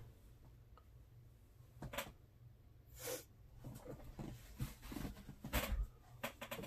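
Faint, scattered knocks and rustles of someone searching through things, with sharper clicks about two, three and five and a half seconds in.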